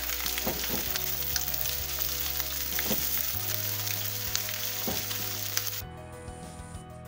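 Onion filling frying in butter in a non-stick pan, sizzling steadily while a silicone spatula stirs it, with small scraping clicks. About six seconds in, the sizzling cuts off and only soft background music is left.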